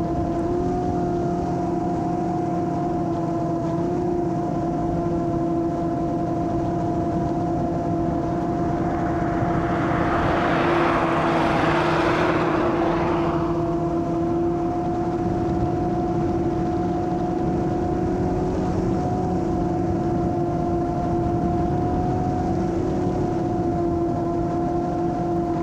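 Molecula FPV M7 long-range quadcopter's motors and two-blade propellers humming at one steady pitch while cruising, heard on the onboard camera. A rushing noise swells and fades about ten to fourteen seconds in.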